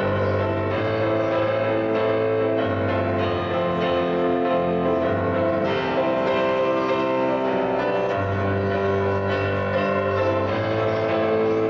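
Electronic keyboard played in a piano voice: slow chords over long held bass notes that change every second or two.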